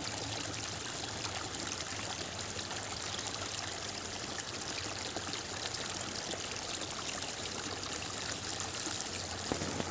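Water flowing steadily along a shallow earthen irrigation channel, a continuous trickling stream over mud and debris.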